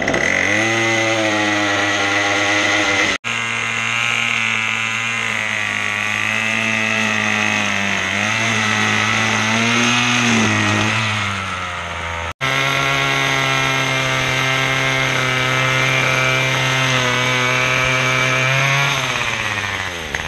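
Two-stroke petrol string trimmer (whipper snipper) running at high revs while cutting grass, its engine note dipping and recovering under load, broken twice by sudden short gaps. Near the end the engine winds down, its pitch falling away.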